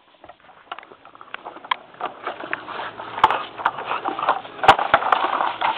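Irregular scuffling, crackling and knocking in dry leaves and dirt as a Boston terrier tugs at a child's plastic ride-on bike, growing louder through the stretch, with a couple of sharper knocks.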